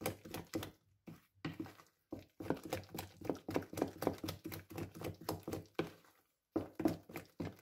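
Wooden spoon beating thick black-eyed-pea acarajé batter in a plastic bowl: a fast run of wet slapping strokes, several a second, with brief pauses about two seconds in and again about six seconds in. The batter is being whipped to work air into it before frying.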